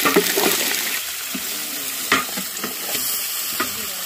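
Chunks of meat sizzling in a large aluminium pot as they are stirred with a wooden stick, with a few sharp knocks along the way.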